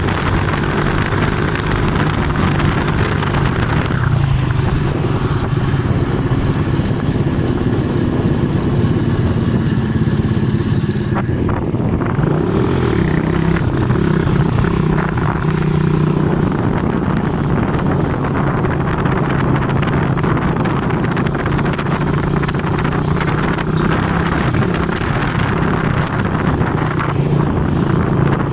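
ATV engine running steadily for the whole stretch, its pitch rising and falling now and then as the throttle changes.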